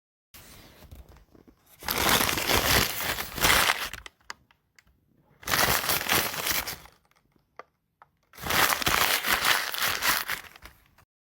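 Paper crinkling and crumpling in separate bursts: a quieter one at the start, then three louder ones of about one and a half to two and a half seconds each, with short silences between.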